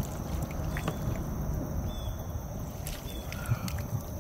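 Water sloshing and trickling around a fishing kayak, with a few light knocks and clicks.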